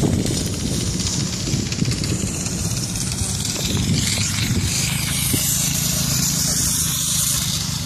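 Homemade go-kart's Honda 160 cc single-cylinder four-stroke engine running as the kart drives across grass, its note holding fairly steady.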